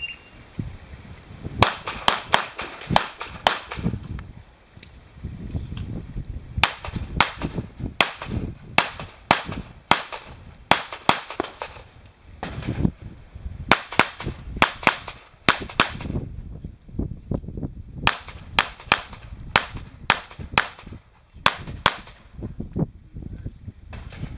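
A short shot-timer beep, then an IPSC competitor's pistol firing dozens of shots in quick strings and pairs. The strings are broken by pauses of one or two seconds while he moves between shooting positions or reloads.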